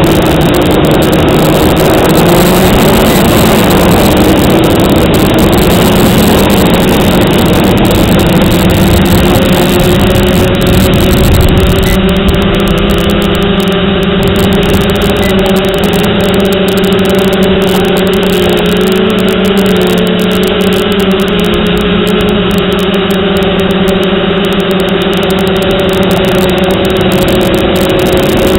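Quadcopter's electric motors and propellers buzzing in flight, heard close up. It is a steady multi-tone drone over rushing air noise, and the pitch drifts slightly as the throttle changes.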